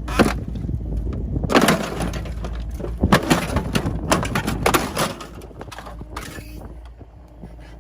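Excavator bucket crunching and tearing into a Ford F-350's body, with repeated loud metal-and-plastic crunches over the excavator's running engine. The crunching eases off in the last second or so.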